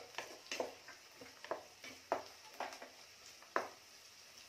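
Wooden spatula scraping and tapping against a nonstick pan while stirring chopped onion and green bell pepper, about three strokes a second, over faint sizzling of the oil.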